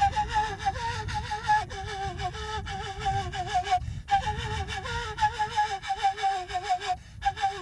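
A breathy flute plays a wavering, ornamented melody in long phrases, breaking off briefly for breath about four seconds in and again near the end.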